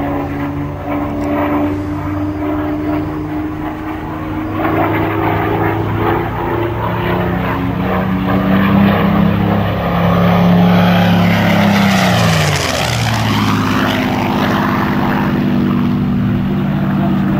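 Supermarine Spitfire's Rolls-Royce Merlin V12 engine during a low display pass. The engine note rises and grows louder as the aircraft comes in, is loudest about ten seconds in, then drops sharply in pitch as it passes by about two seconds later, and carries on at the lower pitch.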